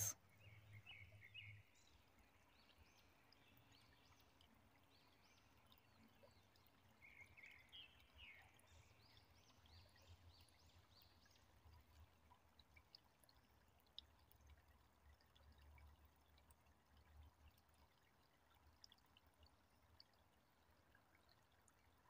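Faint birdsong: quick runs of short high chirps in the first couple of seconds and again about seven to ten seconds in, over the faint trickle of a shallow, stony creek.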